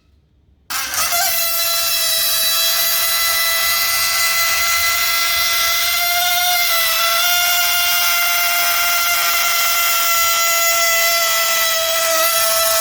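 A purple metallic balloon deflating with a steady high squeal as air is let out through its stretched neck, starting abruptly under a second in and holding one pitch with a slight wobble partway through.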